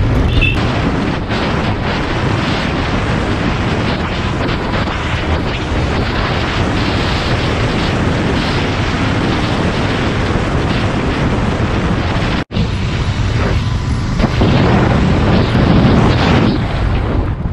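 Heavy wind noise roaring on the microphone of a Royal Enfield Continental GT 650 ridden at speed, with the 650 parallel-twin engine running underneath. The sound cuts out for an instant about twelve seconds in.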